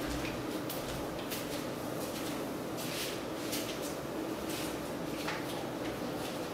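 Steady room hum with scattered faint clicks and rustles, like small movements nearby; no engine running.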